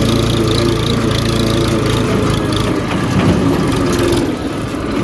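Farm tractor's diesel engine running steadily under way, heard close from the seat, with its even firing beat.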